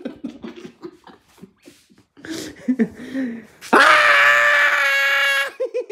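A person's loud, high, held scream at a steady pitch, breaking in suddenly about three and a half seconds in and lasting nearly two seconds, after faint voices and shuffling.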